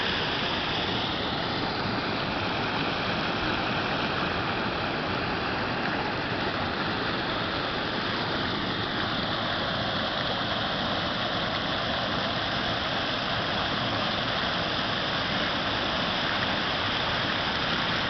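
Steady rushing of water pouring over the spring's waterfall.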